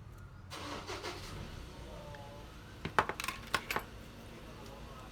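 Small metal tools and parts handled on a repair bench: a brief scraping rustle, then about three seconds in a quick run of five or six sharp metallic clicks.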